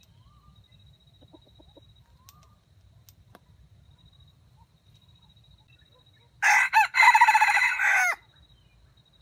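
Red junglefowl rooster crowing once, about six seconds in: a short crow that breaks briefly after the first note and ends with a drop in pitch.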